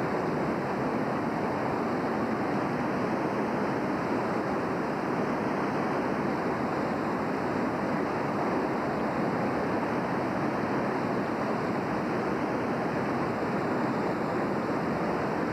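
Floodwater of the swollen North Fork Wilson River rushing past in a steady, unbroken wash of noise.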